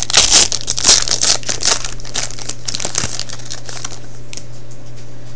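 Foil trading-card pack being torn open and its wrapper crinkled in the hands. The crinkling is loudest in the first two seconds and dies away by about four seconds in.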